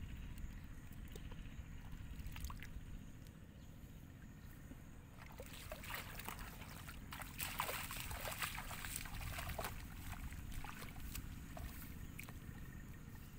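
Shallow muddy water splashing and sloshing as it is waded through and worked by hand, with a busy spell of quick splashes in the middle. A low steady rumble runs underneath.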